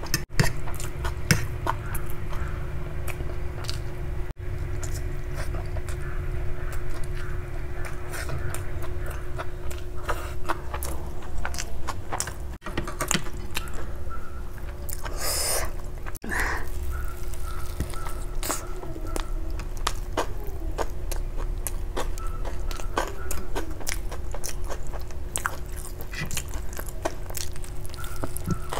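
Close-miked eating: chewing and biting with many wet mouth clicks, first a mouthful of hand-eaten noodles, then bites of a soft bun. There is one louder crunchy bite about halfway through, over a steady low hum.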